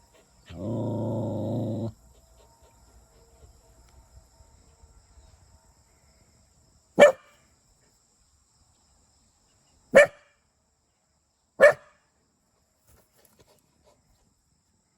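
Australian Shepherd dog bringing out one drawn-out low growl of about a second and a half, then three sharp single barks a few seconds apart, directed at a snake.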